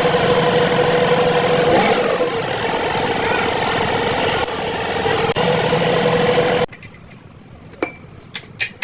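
An engine running steadily with a constant hum, which cuts off abruptly about two-thirds of the way through. A few light clicks and knocks follow.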